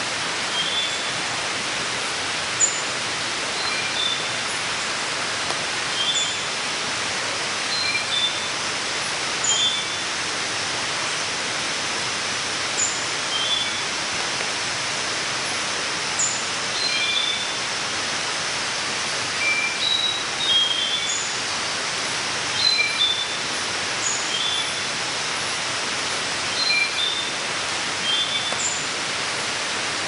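Cloud forest ambience: a steady hiss, with short high chirps repeating about every one and a half to two seconds and scattered lower chirps in between.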